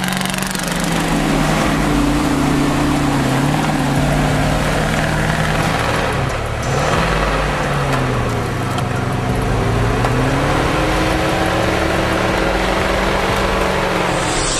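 Heavy truck engine running and revving under load, its pitch rising and falling again and again.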